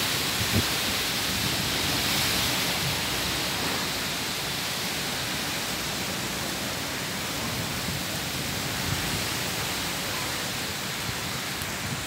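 Heavy rain and strong wind of a tropical thunderstorm: a steady rush of noise, a little louder in the first two or three seconds, with a couple of faint low knocks.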